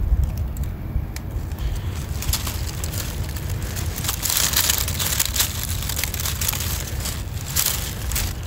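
Dry oak leaf litter crunching and crackling as a hand presses down into it, with many small sharp crackles, densest about four to six seconds in. A steady low rumble runs underneath.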